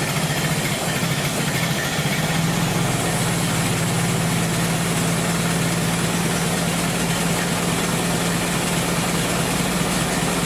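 1925 Ford Model T four-cylinder side-valve engine idling steadily, running on a newly fitted ignition timer that replaced a badly worn one.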